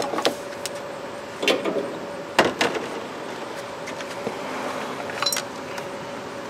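A few sharp clicks and knocks from an A/C manifold gauge set and its hoses being handled and hung on the raised hood, over a faint steady hum.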